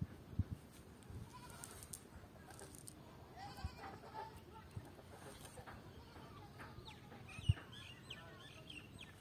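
Bleating of a farm animal, heard around the middle and again near the end, with a few short knocks, the loudest a little before the end.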